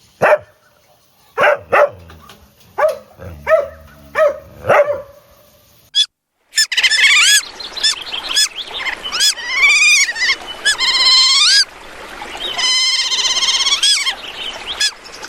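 A dog barking in short, separate yaps, then after a cut a bird calling with repeated high, arching whistled notes and a fast trill near the end.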